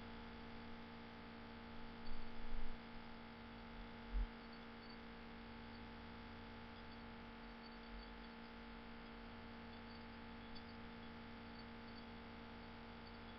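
Steady electrical hum made of a few steady tones, at a low level. There are a couple of soft low thumps about two and four seconds in.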